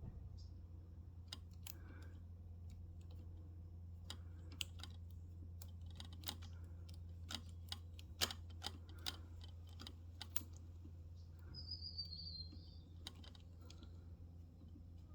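Scattered small clicks and taps of small clutch-adjuster parts being handled and fitted by hand, over a steady low hum, with a short high chirp about twelve seconds in.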